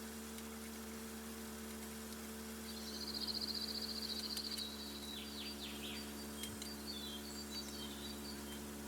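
A bird calling: a fast high trill lasting about two seconds, then a few short falling chirps, over a steady low hum.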